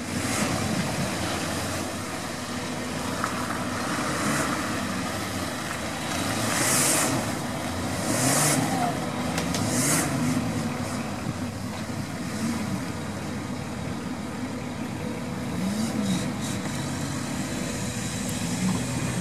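Nissan Patrol 4x4's engine revving up and down over and over as it churns through deep mud, with several short splashing bursts as the spinning tyres throw mud and water.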